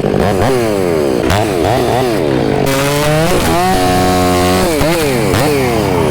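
Chainsaw bucking a felled trunk, its pitch dropping under load and rising again as it cuts, over and over, and holding a steady high pitch for a stretch near the middle. A steadier, lower engine drone runs underneath.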